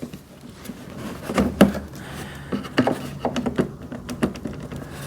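Stand parts of an electric wood chipper being handled and fitted into its frame: a string of scattered knocks and clicks with some rubbing and scraping.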